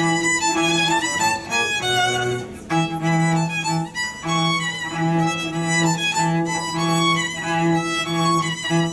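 Violin and cello duo playing: the violin carries the melody while the cello bows a low note repeated in a steady pulse underneath, with a brief pause about two and a half seconds in.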